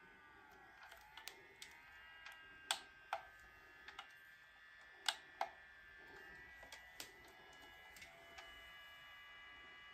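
Handheld IPL hair-removal device running with a steady high-pitched whine, broken by a dozen or so sharp clicks at irregular intervals, the loudest in pairs about three and five seconds in and a single one about seven seconds in.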